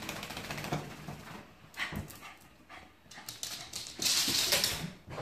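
A small terrier rubbing and scrabbling about to dry itself after a bath. Its paws and fur make scratchy rustling and clicking, with small dog noises in between, and a loud rustling burst comes about four seconds in.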